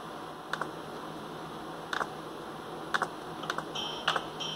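About five sharp clicks from someone working a laptop, spaced roughly a second apart, over a steady low hum.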